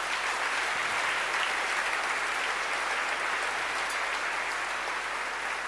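Audience applauding in a large hall, a dense steady clapping that holds throughout and begins to thin toward the end.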